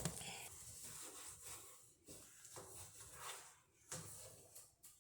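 A cloth wiping a refrigerator door: faint rubbing strokes, with a soft knock about four seconds in.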